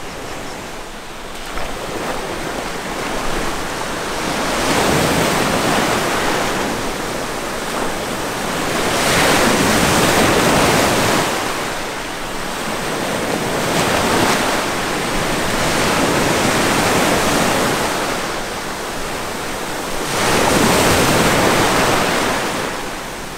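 Ocean surf breaking and washing up a sandy beach, the rushing noise swelling and falling in long surges every few seconds.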